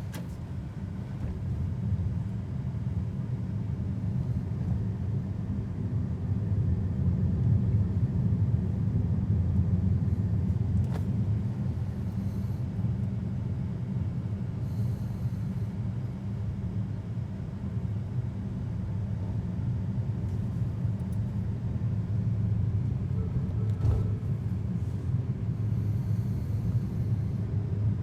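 Low, steady road and tyre rumble inside the cabin of a moving BYD Seagull electric car, with no engine note. There is a faint click about eleven seconds in and a short low knock near the end.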